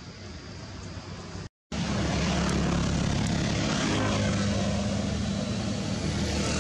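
A steady, loud engine drone with a low hum, cutting in abruptly after a brief dropout about one and a half seconds in; before that, only a fainter hiss.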